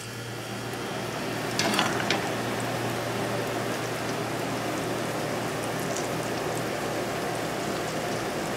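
Potato latkes frying in shallow olive oil in a skillet: a steady sizzle. Two sharp knocks come about two seconds in, and faint ticks of spattering follow.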